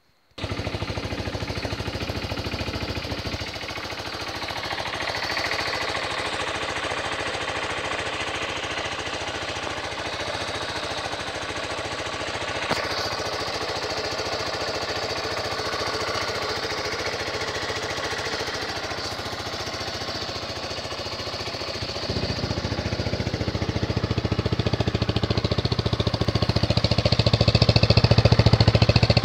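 A Zongshen 250 motorcycle engine starts abruptly and settles into a steady idle of about 2,000 rpm. The exhaust note grows louder and deeper over the last several seconds.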